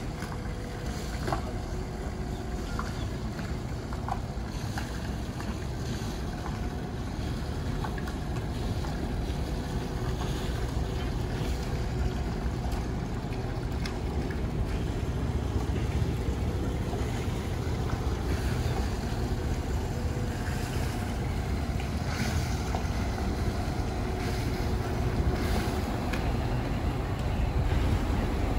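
Metal Shark fireboat's engines running at low speed while the boat manoeuvres, a steady low rumble with churning water, growing gradually louder toward the end.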